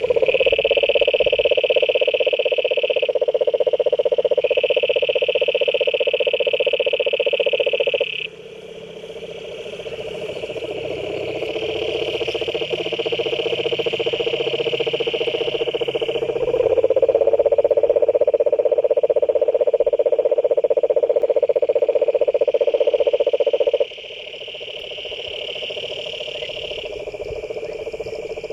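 Frogs calling in a chorus: a steady low pulsing trill, with a higher-pitched trill that comes and goes in spells of a few seconds. The sound drops abruptly twice, about a third of the way through and again near the end.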